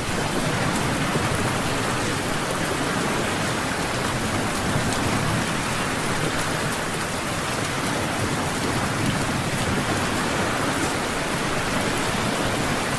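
Steady heavy rain falling, a dense even hiss with fine patter of drops, over a constant low rumble.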